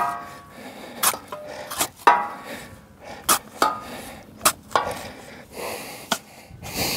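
Steel shovel digging into hard ground: a string of sharp scraping strikes, about one a second, several with a short metallic ring.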